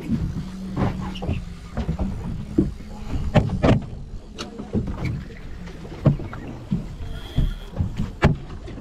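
Water slapping and knocking irregularly against a fishing boat's hull, over a steady low hum.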